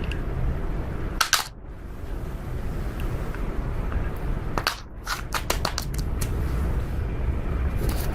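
Slime being pressed and squeezed by hand, giving clusters of sharp crackling pops, a short run about a second in and a longer run around five seconds in, over a steady low rumble.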